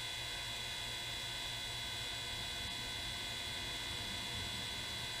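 Steady electrical machine hum with a faint high-pitched tone, unchanging throughout.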